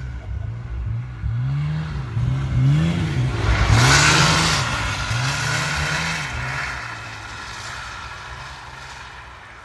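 Snowmobile engine revving up and down over and over, about once a second, as the sled churns through deep snow. It is loudest about four seconds in, with a burst of rushing noise, then fades as the sled rides away.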